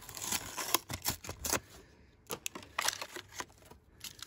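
Stiff plastic blister pack crackling and clicking as it is worked off its cardboard card and a small die-cast car is slid out. A dense run of crinkles fills the first second and a half, then scattered sharp clicks follow.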